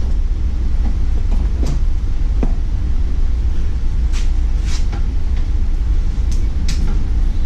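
A steady low rumble with scattered light clicks and knocks.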